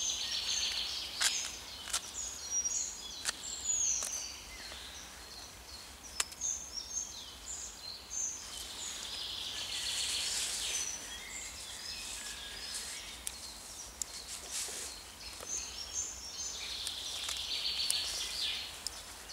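Forest songbirds singing, with one trilling song coming back three times and other chirps between. Occasional sharp clicks come from a knife chopping wild greens on a small board.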